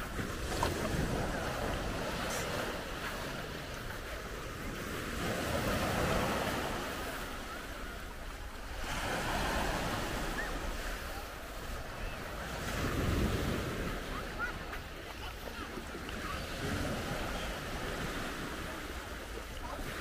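Small sea waves breaking over a low rock shelf and washing up a pebbly beach, the surf swelling and easing every few seconds, with wind rumbling on the microphone.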